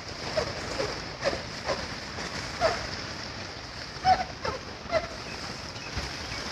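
Steady rush of floodwater pouring through the open gates of a river barrage. Short high calls or voice fragments cut in every second or so.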